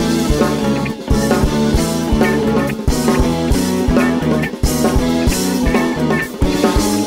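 Instrumental passage of a jazz-funk rock band's song: electric guitar over a drum kit keeping a steady beat, with no vocals.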